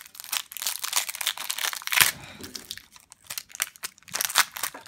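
Foil Yu-Gi-Oh! booster-pack wrapper crinkling and being torn open by hand, in irregular sharp crackles, loudest about two seconds in and again near the end.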